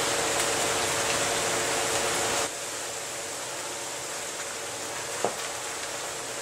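Steady background hiss with a faint hum, dropping abruptly to a quieter hiss about two and a half seconds in; one faint click near the end.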